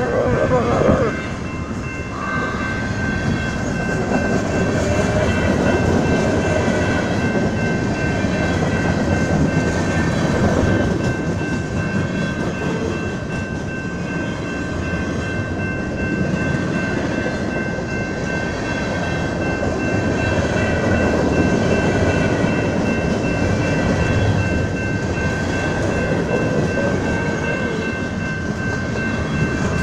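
BNSF manifest freight train rolling past: a steady rumble and rattle of wheels on the rails, with a thin high whine held throughout. A short louder sound with a falling pitch comes in the first second.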